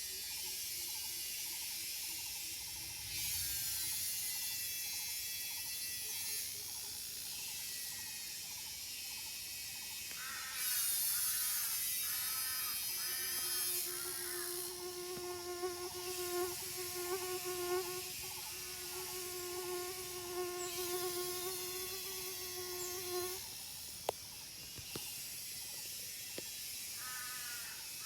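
Cicadas and other insects buzzing in a dense, high chorus that swells in waves. Birds call over it with runs of short rising-and-falling notes about ten seconds in and again near the end, and a steady pitched drone holds for several seconds in the middle.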